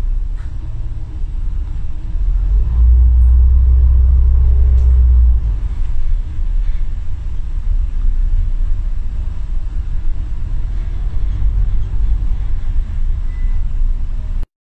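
Low, steady rumble of road traffic, swelling louder for a couple of seconds near the start and cutting off suddenly at the end.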